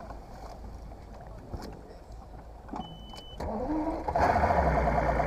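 Bass boat outboard engine being started: a short electronic beep as the ignition comes on, then the engine cranks, rises in pitch and catches, running steadily and much louder for the last second.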